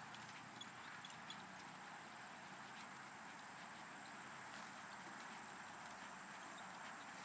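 Faint, distant hoofbeats of a horse trotting while pulling a two-wheeled cart across grass, heard as a few soft scattered ticks. They sit over a steady high-pitched hiss.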